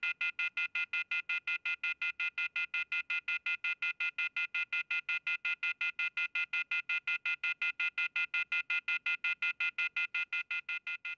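Telephone off-hook warning tone (the 'howler'): a shrill chord of high beeps pulsing about five times a second. It is the signal that a phone receiver has been left off the hook, and it follows the recorded operator message. It fades away near the end.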